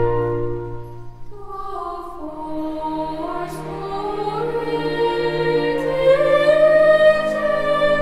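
Background music: a slow, gentle Christmas carol. A held chord fades out, and a new melodic phrase begins about a second and a half in.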